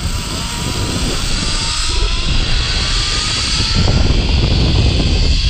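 Zipline trolley's pulleys running along the cable, a whirring whine that climbs slowly in pitch as the rider picks up speed, over heavy wind rumble on the microphone; the whole sound grows louder.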